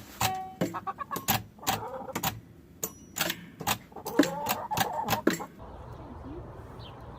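A quick, irregular series of sharp clicks and knocks, then an abrupt change about five and a half seconds in to a steady low background noise.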